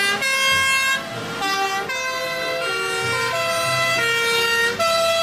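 Two-tone sirens of several fire engines in a convoy, sounding together out of step, so that their high and low notes overlap and alternate.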